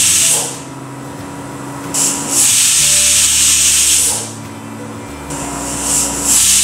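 Stovetop pressure cooker whistling: steam hisses out past the weight in bursts, one ending about half a second in, a full one of about two seconds in the middle, and another starting near the end, over a steady low hum. The whistles show that the cooker is up to pressure, and they are being counted to three to cook the dal and vegetables.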